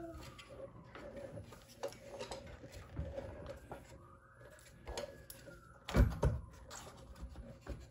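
Ninebot Max scooter wheel and its rubber tire being handled by hand on a rug: scuffing and rubbing with light knocks, and a louder thud about six seconds in.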